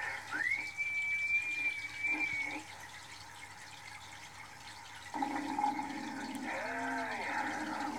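CB radio receiver on upper sideband (27.555 MHz): a whistling tone glides up and holds steady for about two seconds, then the set falls to hiss. About five seconds in, a louder garbled signal with wavering pitch comes in.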